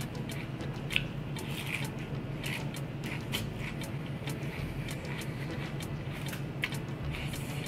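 Wet chewing and squishing of a mouthful of coleslaw, with irregular short clicks and smacks about every half second, over a steady low hum.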